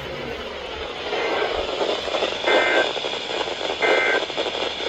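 Radio broadcast hissing with static and no clear voice, with two brief louder bursts about two and a half and four seconds in.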